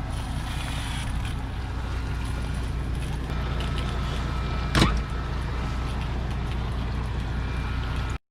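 Steady low hum of a running engine or motor, even and unchanging, with one short knock or click about five seconds in.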